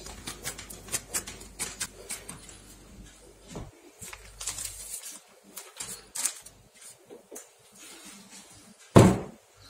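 Hands working dough and plastic cling film, with light crackles and rustles. About nine seconds in there is one loud thud as the large metal bowl of dough is set down on the stone counter.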